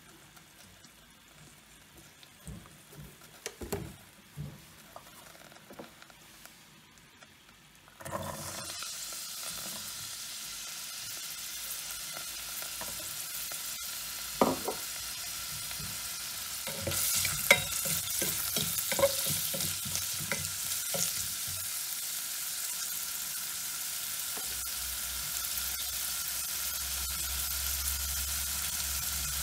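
Diced carrots sizzling in a hot stainless steel pot. The sizzle starts suddenly about a third of the way in and runs on steadily, with a few sharp clinks and scrapes of stirring near the middle.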